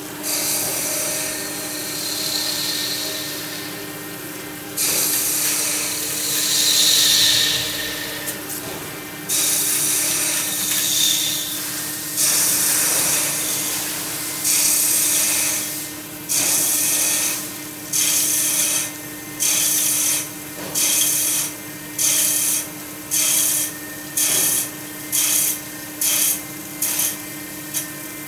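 CNC lathe turning the face of an aluminium disc blank with flood coolant, over a steady machine hum. The cutting and coolant hiss swells and fades at first, then breaks into separate bursts that come shorter and quicker toward the end, as the tool makes repeated passes.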